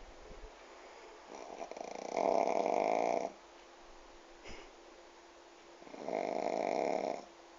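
Pug snoring while asleep sitting up: two long snores about four seconds apart, the first building up over a second before its loudest part. A short faint click falls between them.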